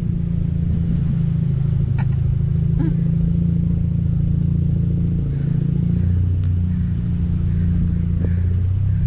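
Car engine running at low speed in a steady low hum, heard from inside the car, its note shifting slightly about five seconds in, with a few light clicks.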